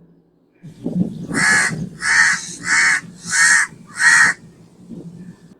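Crow cawing five times in a steady series of harsh calls, each about half a second long.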